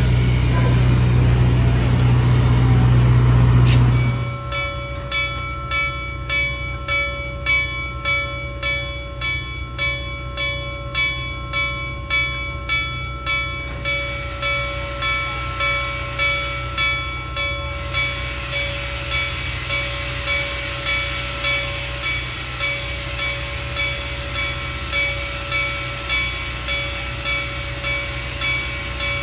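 A loud low rumble close beside the steam locomotive for about four seconds. Then Reading & Northern 2102's bell ringing steadily, about one and a half strokes a second. From about the middle on, steam hisses under the bell.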